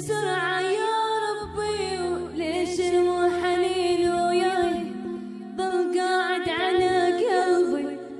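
A young woman singing an Iraqi song in a wavering, ornamented voice over sustained low accompanying notes that shift every second or two.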